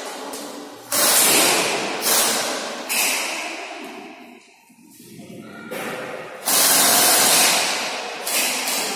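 Airsoft guns firing in about six rapid bursts, each starting suddenly and dying away in the hall's echo.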